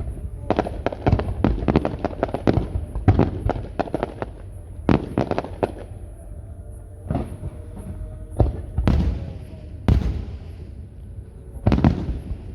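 Aerial fireworks exploding: quick volleys of sharp bangs in the first three seconds and again around five seconds in, then single booms a second or two apart.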